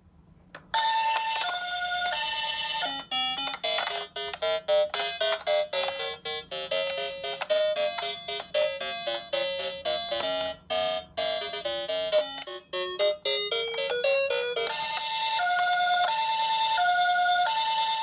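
Toy ambulance's electronic sound unit, set off by a roof button, playing a two-tone hi-lo siren, then a short beeping electronic melody from about three seconds in, then the two-tone siren again for the last few seconds.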